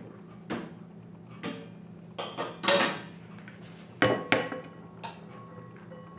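Cooked fusilli being tipped from a plastic container into a glass bowl: a string of knocks and clinks as the container bumps the bowl, the loudest about three and four seconds in, the glass ringing briefly after the one at four seconds.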